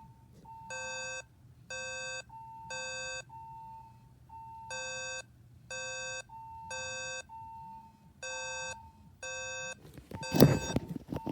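Fire alarms sounding: one beeps harshly in groups of three with a pause between groups, the temporal-three evacuation pattern, while a second, thinner tone beeps in the gaps. A loud clatter comes about ten seconds in.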